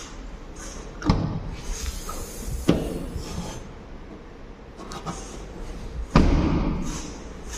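Suzuki Wagon R's rear tailgate being opened, with a couple of latch and hinge clunks, then slammed shut about six seconds in; the slam is the loudest, deepest thump.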